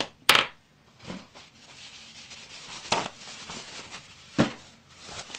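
Ink pad being rubbed and dabbed along the edges of a paper tag: faint scratchy rubbing broken by three sharp taps, the loudest just after the start.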